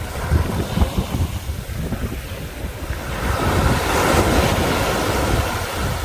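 Small sea waves breaking and washing up a sandy beach, with one wash swelling about three seconds in and then fading. Wind buffets the microphone with a low rumble throughout.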